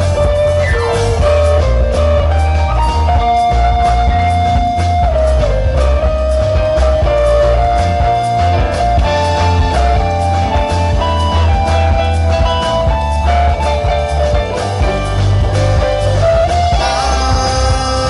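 Live rock band playing an instrumental passage: a melody of long held notes that slide between pitches rides over electric bass, drum kit and keyboards. The sound brightens about a second before the end.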